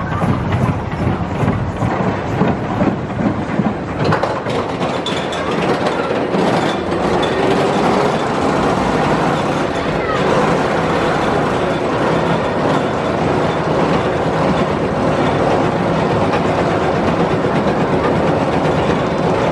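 Tennessee Tornado steel roller coaster train rolling along its track. About four seconds in it gives way to a steady clattering as a loaded train is hauled up the chain lift hill.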